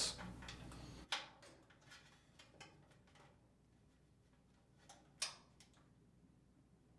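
Faint clicks and taps of the new lid lock's cable retainer being pressed into the washer's top panel: one sharper click about a second in, a few tiny ticks after it, and another click a little after five seconds.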